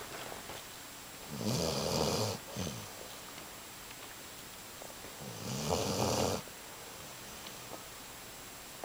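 Basset hound snoring in its sleep: two snores about four seconds apart, each lasting about a second.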